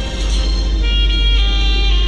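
Background music of held, sustained notes that change about a second in, over the steady low rumble of a car driving through a road tunnel.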